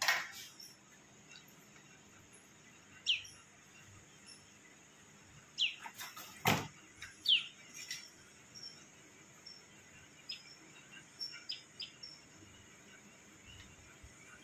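A bird calling in short falling chirps, a few times, over a faint steady high hiss. A single sharp knock comes about six and a half seconds in.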